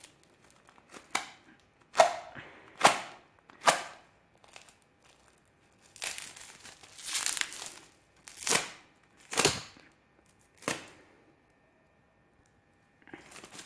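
A sharp knife cutting through a box's packing: a series of short, sharp rasping strokes about a second apart, with a longer scraping, tearing stretch in the middle.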